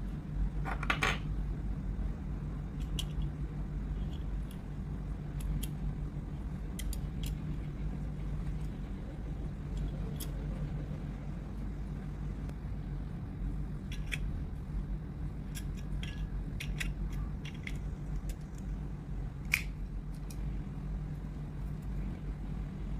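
Scattered small clicks and light metallic taps over a steady low hum, with one sharp click about twenty seconds in.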